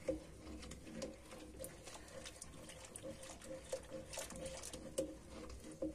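A wire whisk stirring a milk-and-rice pudding mixture in a stainless steel pot: faint liquid swishing with scattered light clicks of the whisk against the pot.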